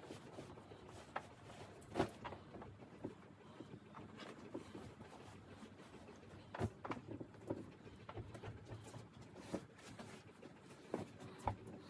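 Soft, scattered rustles and thumps of pillows and a duvet being handled while a bed is made, the loudest thump about 2 seconds in.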